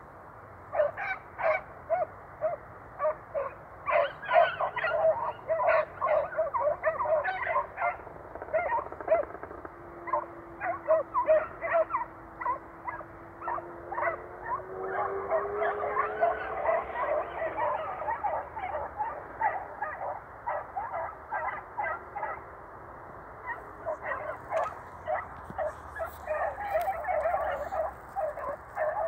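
A pack of scent hounds, Basset Fauve de Bretagne and beagles, baying in chorus, many overlapping yelps and bays in quick succession: the pack giving tongue as it runs a rabbit's trail. The chorus thins briefly twice, then picks up again.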